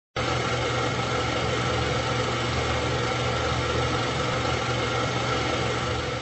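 Steady mechanical running noise with a low hum, starting abruptly and beginning to fade near the end.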